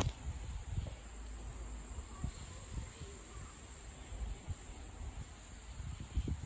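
Steady high-pitched insect chorus droning without a break, with a few soft low thuds near the end.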